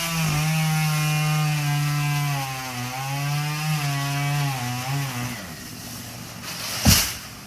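Chainsaw running under load through a palm trunk, its pitch wavering, then dying away about five seconds in. Near the end comes one heavy thud as the felled palm hits the ground.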